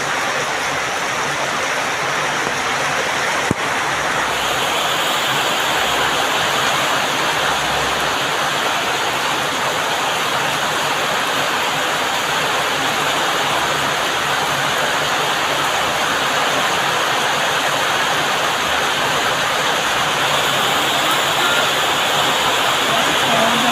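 Heavy rain pouring steadily, an even rushing hiss, with a single sharp click a few seconds in.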